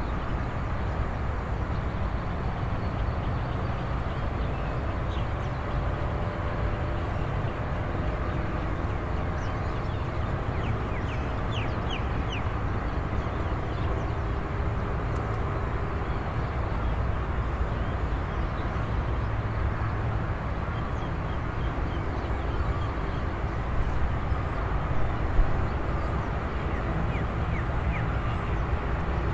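Early-morning countryside ambience: a steady low rumble with scattered bird calls. A few short, high chirps come about a third of the way in and again near the end.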